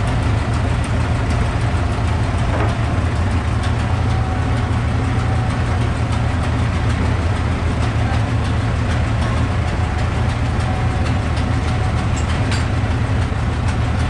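Tractor engine running steadily with a deep, even drone while its front loader carries a sawn oak block on pallet forks.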